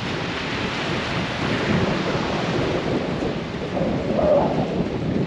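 Wind buffeting the microphone: a low, uneven rumble over the wash of surf, swelling briefly about four seconds in.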